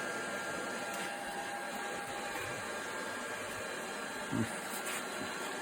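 Cheap stick welder running as a constant-current supply under load, its cooling fan whirring steadily with a faint high electrical whine. A brief low thump comes about four seconds in.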